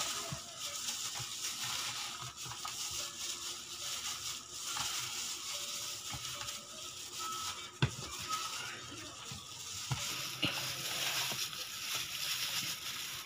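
Raw chicken pieces being kneaded with seasoning by a hand in a thin plastic bag: steady crinkling and rustling of the plastic with wet squishing of the meat against a plastic basin, and one sharp click about eight seconds in.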